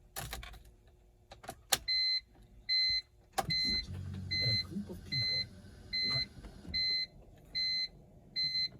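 A 2004 BMW 325ci's in-car warning chime beeps steadily, about one beep every three-quarters of a second, before the engine is started. Clicks and a thump from the car come first, then a low rumble.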